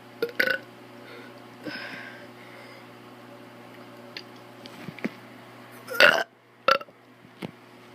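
A child burping on purpose, several short burps in a row: two quick ones at the start and two louder ones about six seconds in.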